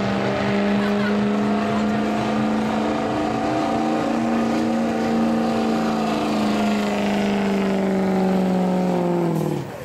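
Street diesel pickup truck's engine at full throttle under load in a truck pull. It holds one steady high pitch that sags slowly, then drops sharply and cuts off near the end as the throttle is let off.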